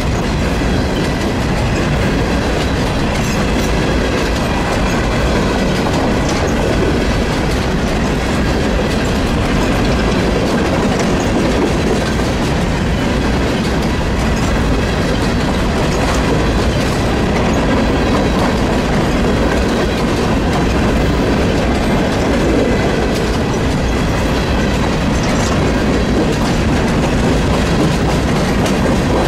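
A train's cars rolling past on the rails, with steady loud wheel-on-rail noise and a faint steady high whine above it.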